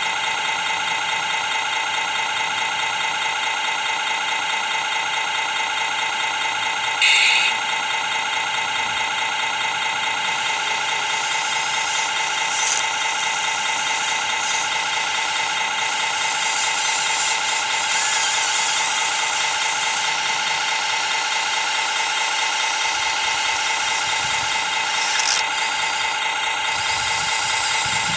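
Steady high mechanical whine with many even tones from a radio-controlled scale model excavator's small electric motors and pump as it digs wet mud and swings its loaded bucket, with a brief sharp noise about seven seconds in.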